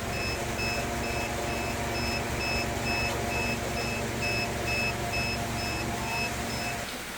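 Electronic alarm beeping rapidly, about three short high beeps a second, over a steady machine hum that cuts off near the end.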